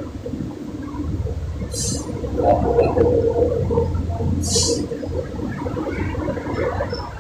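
Water gurgling and sloshing steadily, with two short hisses, about two and about four and a half seconds in.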